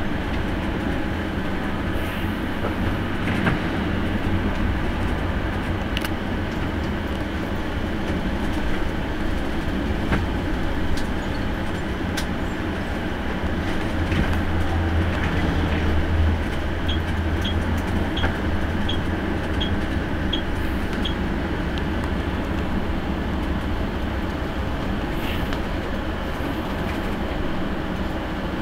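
Coach bus engine and road noise heard from inside the driver's cab: a steady low rumble that swells briefly about halfway through. Shortly after, there is a short run of light ticks about twice a second.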